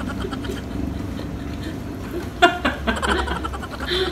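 A person laughing in short bursts, about halfway through and again near the end.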